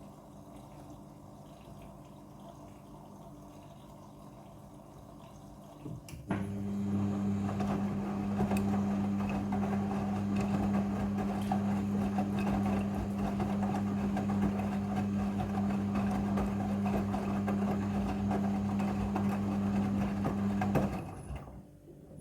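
Front-loading washing machine during its rinse stage: after a faint hum, a pump or water valve starts about six seconds in and runs with a steady electric hum and rushing water for about fifteen seconds, then cuts off near the end.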